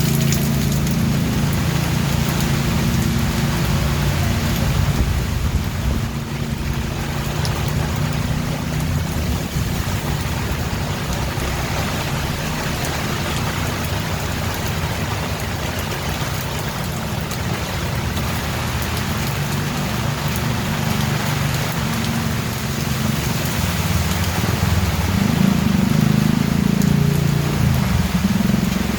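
Steady rain falling, an even hiss of drops on surfaces, with a low rumble underneath that is strongest at the start and swells again near the end.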